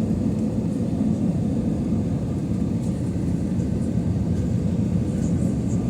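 Steady cabin noise inside an Airbus A320 in flight, a low drone of its engines and the airflow with a faint steady hum running through it.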